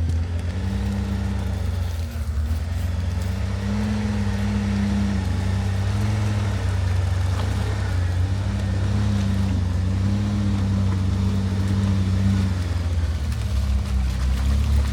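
Off-road Jeep engine running at low revs, its pitch rising and falling gently as the throttle is worked.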